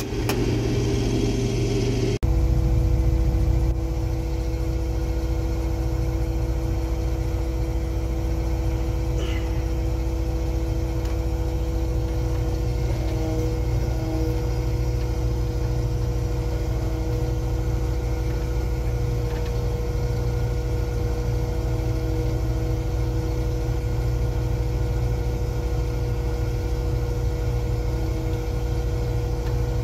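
Case IH 2188 Axial-Flow combine running under load, heard from inside the cab: a steady engine and machinery drone with a steady whine, while the unloading auger pours shelled corn into a semi trailer. The sound changes abruptly about two seconds in.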